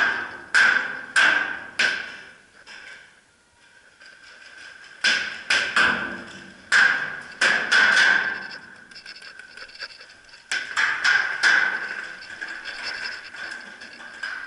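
Paintball markers firing: sharp cracks in three volleys of about four, seven and four shots, roughly two shots a second.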